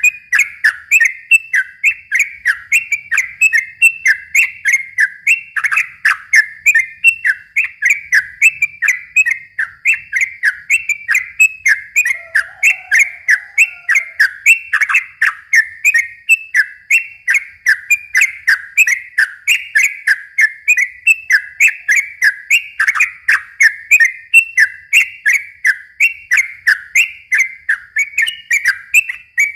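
Yellow-vented bulbul (trucukan) singing a long unbroken run of short, quick whistled notes, about three a second without pause: the rapid-fire 'ropel' song used to provoke other bulbuls into singing.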